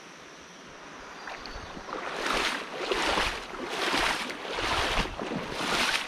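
Boots splashing through a shallow creek ford, a wading stride about every second, starting about two seconds in after a faint steady hiss.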